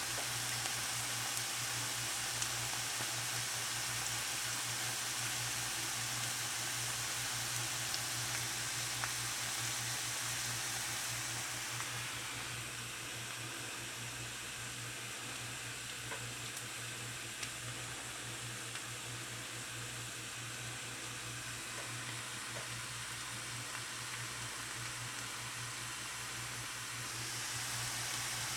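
Chunks of potato frying in oil in a skillet, sizzling steadily with small pops. The sizzle softens a little before halfway through and swells again near the end.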